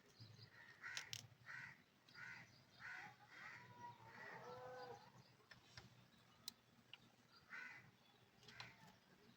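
Faint bird calls: a run of short calls about half a second apart starting about a second in, a warbling call around the middle, and a couple more short calls near the end.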